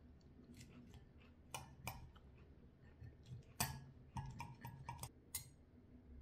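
Faint clicks of a metal knife and fork against a glass salad bowl while cutting and picking up salad: scattered light clinks, the sharpest about three and a half seconds in, then a quick run of small clicks.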